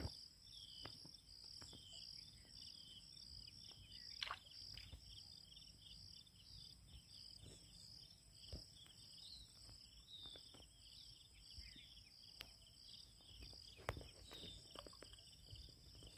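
Faint insect trilling, a steady rapid pulsing with short repeated chirps beneath it, and scattered soft clicks and taps.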